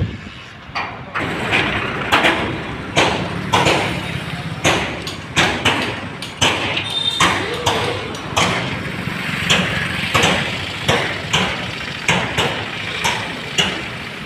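A steady engine hum with repeated sharp clanks about twice a second, not quite evenly spaced.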